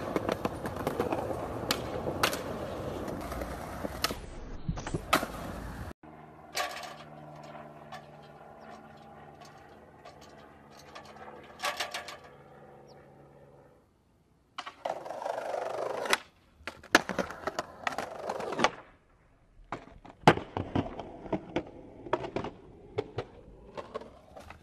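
Skateboard wheels rolling on concrete, with repeated sharp clacks of the board popping and landing. A quieter stretch in the middle holds a steady low hum, and there is a brief near-silent gap.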